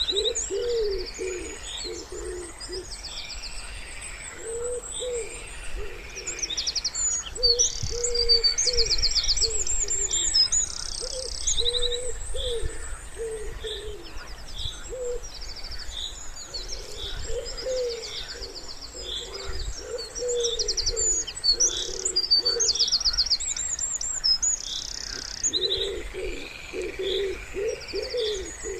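A wood pigeon cooing in repeated phrases, pausing for a few seconds late on, while several small songbirds sing high trills and chirps over it.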